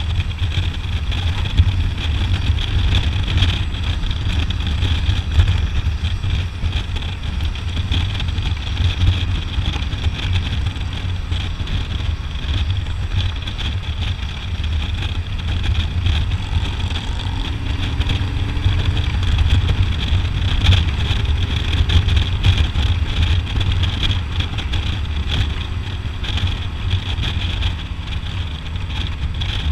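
Touring motorcycle's engine running steadily at road speed, a continuous low rumble mixed with wind rushing past the microphone.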